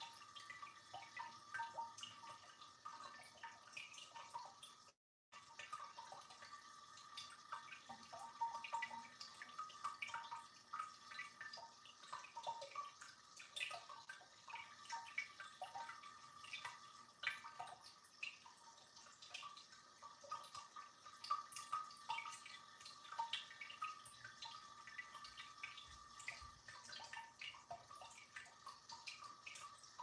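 Small ceramic tabletop cascade fountain, water trickling from pitcher to pitcher into the tiered bowls with a faint, constant patter of drips. The sound cuts out for a moment about five seconds in.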